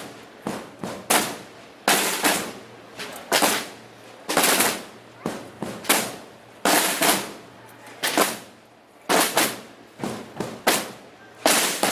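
Massed snare drums of a marching drum corps beating a repeating processional cadence: sharp rolls and accented strikes in loud bursts, about two a second.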